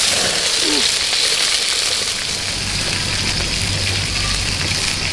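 Eels frying in a wok of bubbling oil over a wood fire: a steady sizzle, mixed with the patter of light rain.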